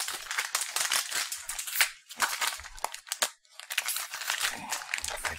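Snack pouch crinkling and rustling as it is handled and pulled at, a dense run of sharp crackles with a brief pause past the middle.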